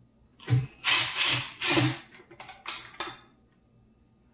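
Milwaukee 18-volt cordless driver running in several short trigger pulls, backing screws out of a garbage disposal's cover plate. It starts about half a second in and stops about three seconds in.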